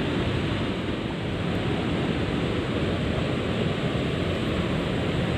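Steady rush of water pouring over a river weir, heard as an even, unbroken noise.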